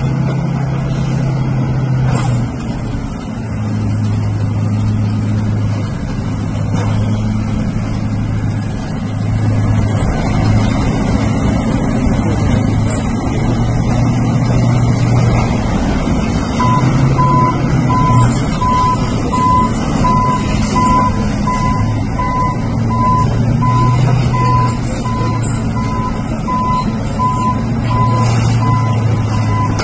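Armored tracked bulldozer's diesel engine running under load, a low drone that swells and eases as it works. From a little past halfway, a reversing alarm beeps at a steady even rate.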